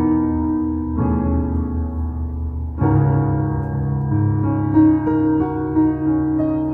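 Yamaha keyboard played in a piano voice: slow, held two-handed chords, struck anew about a second in and again near three seconds. The chords are polychords such as E over B major seventh and G-flat fifth over E-flat minor seventh in third inversion.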